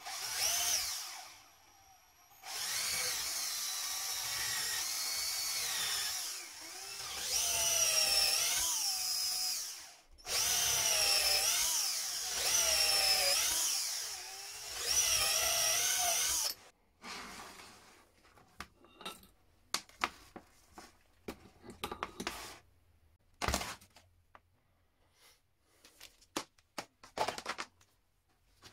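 Parkside cordless drill boring into a wooden block in four runs, its motor whine dipping and rising in pitch as the bit loads up and frees. After that come scattered knocks and clicks of wood and tools being handled, one sharper knock about three-quarters of the way through.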